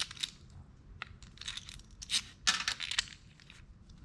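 Steel sockets, washers and a bolt being handled and swapped by hand: a series of short metallic clinks and rattles, busiest a couple of seconds in.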